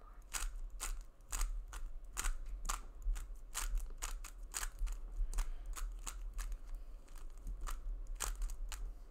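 A 3x3 speed cube being turned quickly by hand: sharp plastic clacks of the layers snapping round, coming a few a second in uneven runs of turns.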